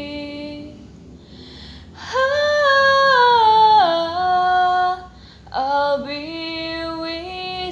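A woman singing unaccompanied: a held note fades out, then after a breath comes a loud phrase that steps down in pitch, and after another breath a new, softer phrase begins.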